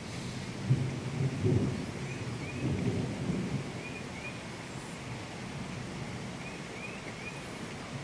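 Thunder rumbling over steady heavy rain. The rumble swells in a few rolls over the first three seconds or so, then dies away, leaving the even hiss of the rain.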